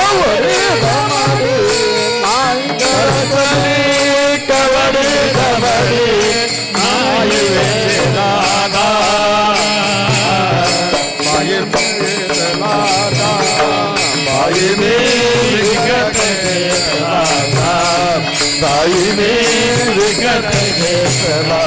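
Devotional kirtan music: a wavering melodic line over a steady percussion beat, with no words sung.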